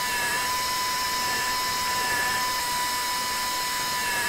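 Dental implant handpiece turning a 3 mm twist drill while preparing an implant site in a model jaw: a steady whine with a constant high tone.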